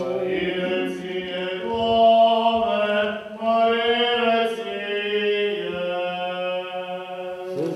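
Church singers chanting in Orthodox style, slow held notes over a steady low drone: the sung response that follows the Gospel reading.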